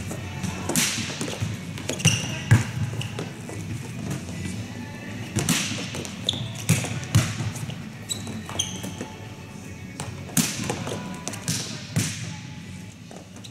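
Volleyballs being struck and passed: sharp slaps of ball on forearms and hands, with balls bouncing on the court floor, each hit echoing in a large hall. A few short high squeaks come between the hits.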